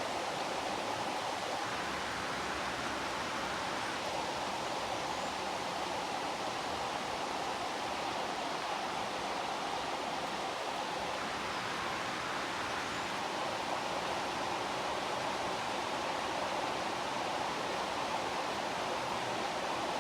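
Heavy rain falling in a steady, even hiss, with no change in intensity.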